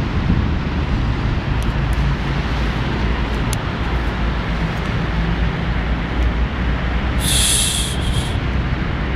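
Steady low rumble and hiss of outdoor background noise, with a brief high-pitched sound lasting about a second some seven seconds in.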